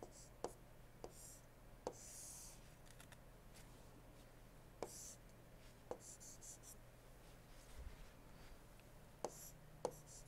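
Faint stylus taps and short scratchy pen strokes on a tablet screen as a diagram is drawn. About eight sharp taps come at uneven intervals, with brief scratching strokes between them.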